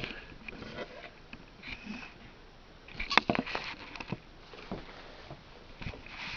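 Faint handling noise: scattered light clicks and rustles, with a small cluster of clicks about three seconds in.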